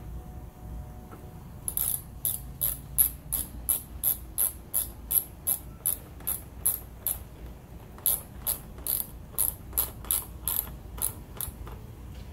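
Hand ratchet tool clicking as screws are driven into a motorcycle's GPS mount: two runs of steady clicks, about three a second, with a short pause between.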